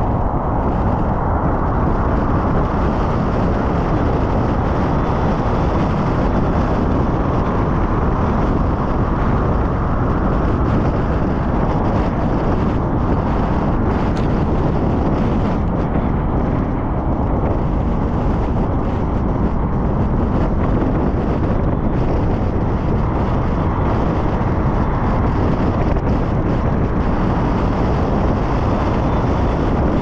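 Steady road and wind noise of a car driving at speed on a highway.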